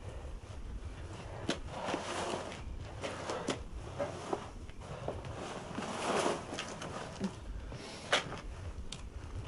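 Clothing rustling twice as it is handled, with scattered knocks and footsteps; the sharpest knock comes near the end.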